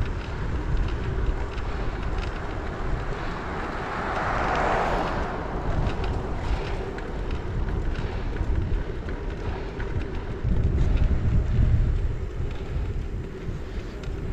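Wind buffeting the microphone of a head-mounted action camera while cycling, a steady low rumble with a louder gust about ten seconds in. A brief rising-and-falling hiss of road noise comes about four seconds in.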